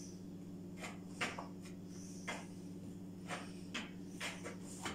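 A hand digging and pushing through sifted flour in a plastic mixing bowl: soft, brushing rustles, about nine of them at uneven intervals, over a steady low hum.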